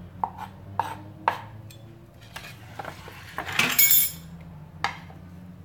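A knife knocking on a wooden chopping board a few times, then a louder metallic clatter of tin cans being handled and knocked together, and one more knock near the end.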